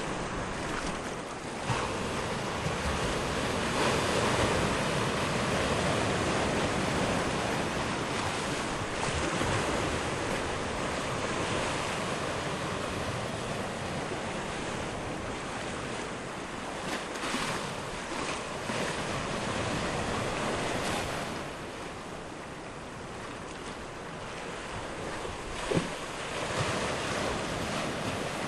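Sea waves washing on the shore at low tide, swelling and easing, with wind on the microphone. There is a short sharp knock about two seconds in and another near the end.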